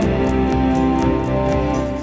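Background music: soft, gentle instrumental with plucked strings and sustained notes.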